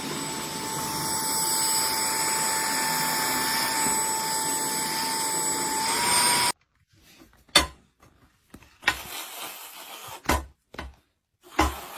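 A small electric motor running steadily with a whine and a rushing hiss, its pitch rising slightly just before it cuts off abruptly; then a few scattered knocks and clicks.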